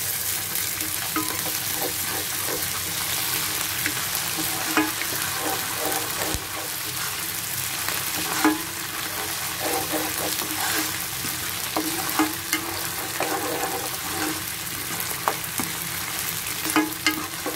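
Chopped onions and ginger-garlic paste sizzling in hot oil in a nonstick pot, stirred with a silicone spatula that scrapes and clicks irregularly against the pan. The onions are being fried until they brown.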